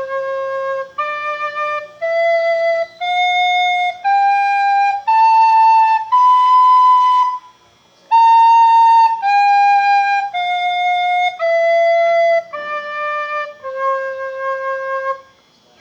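Soprano recorder with German fingering playing the natural notes one at a time as held notes. It climbs step by step from low C up to B, pauses briefly, then steps back down to low C.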